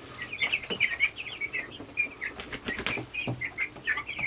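A flock of three-week-old Cornish Cross meat chicks peeping constantly in short, quick chirps, with a cluster of sharp clicks and rustles about halfway through.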